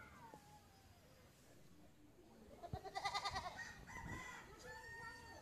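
A rooster crowing once, starting about halfway through and lasting a couple of seconds.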